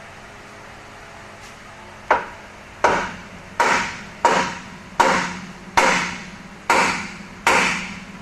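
Hammer blows in a shop: about eight evenly spaced strikes, a little under a second apart, starting about two seconds in, each ringing briefly.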